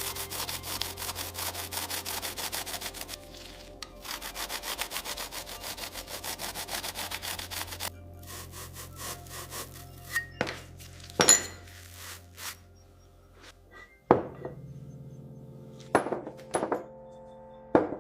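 Rapid back-and-forth scraping strokes, as of a saw or file working metal, in two runs broken by a short pause. These are followed by a series of separate metallic clinks and knocks, some ringing briefly, as parts are handled and set down.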